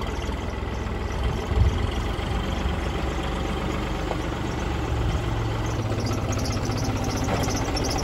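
New Holland compact tractor's diesel engine running steadily as the tractor drives in, carrying a load on its loader forks.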